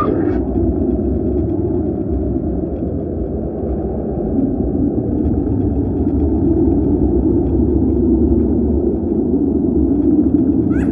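A steady, continuous low rumbling noise with no distinct pitch or rhythm.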